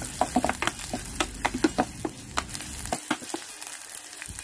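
Sliced onion and garlic sizzling in oil in an electric pot while a spatula stirs them, with frequent short clicks and scrapes of the spatula against the pot.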